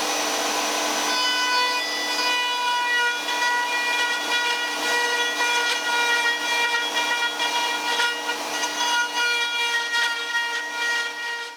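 Router running with a V-groove bit, with the rough, uneven scraping of the bit cutting into the end of a wooden rod from about a second in. The wood is being pushed down onto the bit to cut a groove, an attempt that does not work. The sound cuts off at the very end.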